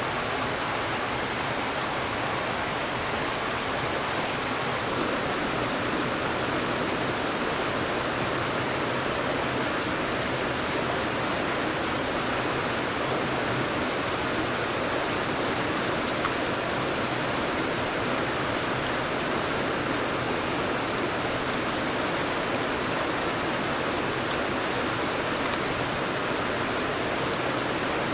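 Steady rushing noise of running water, like a stream.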